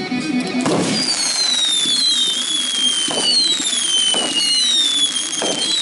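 Fireworks going off: from about a second in, several shrill whistles overlap, each falling in pitch, with a few sharp pops between them.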